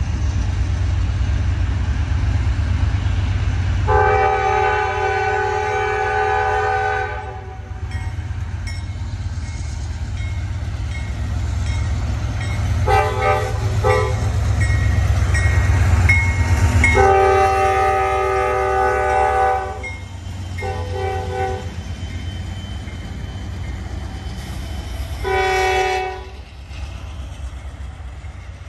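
Horn of a Norfolk Southern diesel locomotive leading a freight train, sounded as a chord in several blasts: a long one about four seconds in, a short pair, a second long one, then short ones near the end. Under it runs the steady low rumble of the diesel locomotives as the train comes up and passes close by.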